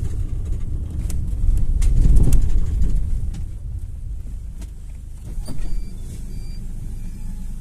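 Inside a GAZelle Next minibus on the move: a low engine and road rumble that swells about two seconds in, with scattered rattles and clicks from the cabin. In the second half a faint short high beep repeats about once a second.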